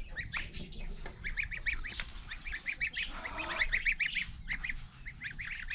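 Month-old goslings peeping: short high calls repeated several times a second in quick runs, with brief pauses.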